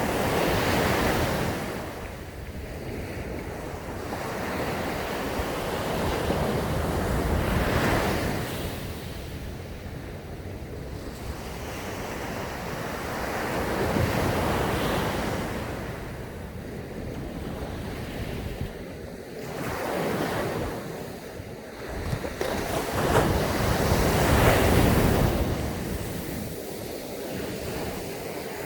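Sea waves breaking on a sandy beach: the surf rises in a rush and falls back, with five swells about every five to seven seconds.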